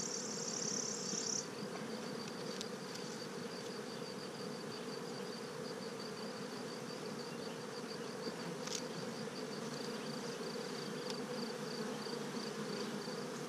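Honey bees buzzing steadily over an opened hive, an even low hum, with a faint high ticking repeated a few times a second. A single sharp click comes partway through as the metal hive tool pries a wooden frame loose.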